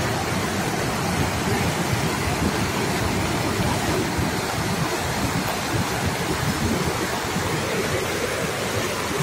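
Muddy floodwater rushing through a swollen river channel, a steady unbroken noise of moving water.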